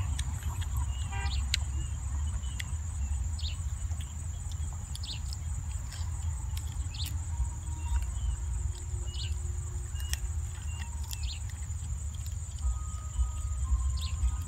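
Steady high-pitched insect chorus from the rice field, over a steady low rumble, with scattered small clicks of a person chewing and gnawing on boiled chicken.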